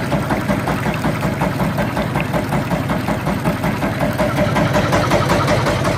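A small boat's engine running steadily under way, with an even, rapid pulse.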